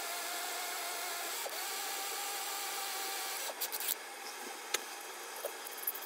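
Small power drill running steadily as a tiny bit bores a screw hole into a die-cast metal car body, stopping about three and a half seconds in. Then a few light clicks and brushing as the shavings are swept away.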